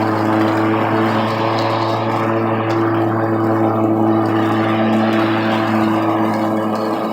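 Ego 20-inch battery-electric lawn mower running steadily in mulch mode, its blade spinning with a constant hum and a dense rush of air and chopped leaves.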